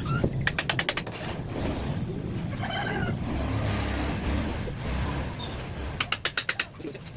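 Rapid knocking on wood, in two short bursts of about ten strikes a second, about half a second in and again near the end, over a steady low rumble.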